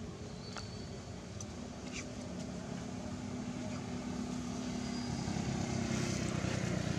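A motor vehicle's engine running, a steady low hum that grows louder through the second half as it approaches. A few short, faint high chirps sound over it.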